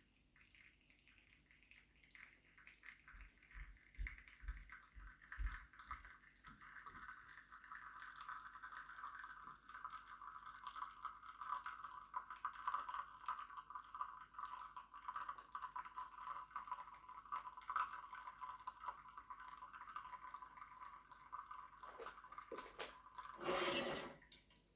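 ACS Evo Leva lever espresso machine extracting a shot: espresso trickling and dripping from the portafilter into the cup, a faint crackling flow whose pitch drops over the first ten seconds and then holds steady. A short, louder noise comes near the end as the pour stops.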